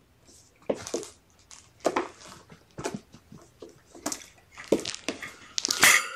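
Kittens' paws and claws scrabbling and knocking on a plastic scale tray as they climb on and off it: a run of irregular clatters and scrapes, the loudest near the end.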